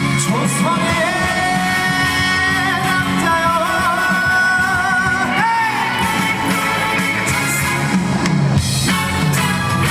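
Trot music played live: a voice sings long, wavering held notes over a band accompaniment with guitar.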